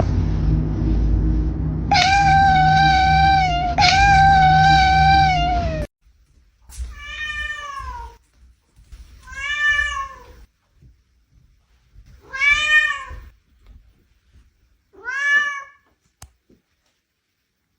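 Domestic cat meowing: two long, drawn-out meows over a low rumble, then four shorter meows about two to three seconds apart, each rising and falling in pitch.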